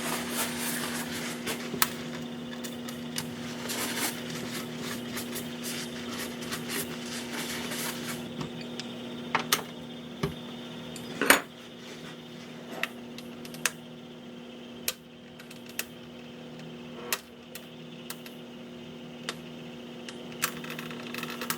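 Small drive motor of a fake aquarium lamp running with a steady low hum. A rag rubs over the parts for the first eight seconds or so, then scattered clicks and taps of parts being handled follow, the loudest about eleven seconds in.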